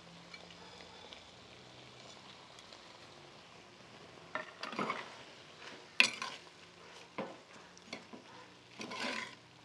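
Tomatoes and dried chiles frying with a faint sizzle in a clay cazuela. From about four seconds in, a spatula stirs and scrapes through them in short strokes, with a sharp knock about six seconds in.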